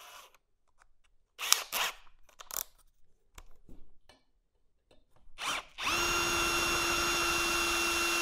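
A few light clicks and knocks, then about six seconds in a handheld drill starts and runs steadily with an even motor whine. A step drill bit is cutting its first step, a 1/4 inch hole, in 16-gauge steel tubing over a pilot hole.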